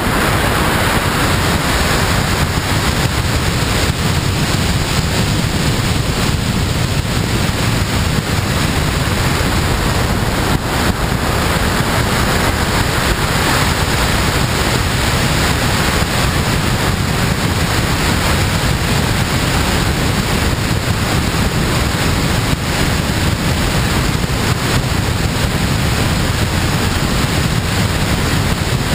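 Steady rush of airflow over a camera mounted on the wing of a glider in flight: loud, even wind noise with no engine tone in it.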